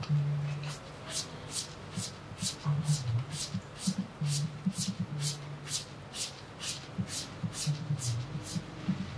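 Hands scrubbing shampoo lather through hair and scalp: a rhythmic squishing at about three strokes a second, over a low rubbing sound.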